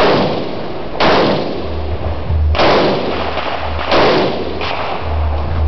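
Rifle shots fired from the prone position: four sharp reports about one to one and a half seconds apart, each trailing off briefly, then a fainter fifth shot soon after the fourth.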